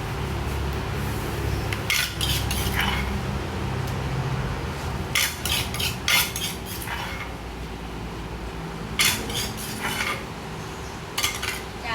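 Kitchen utensils clinking and knocking against a bowl in short runs of sharp strokes, about four runs, while papaya salad is being prepared; a low steady hum sits underneath.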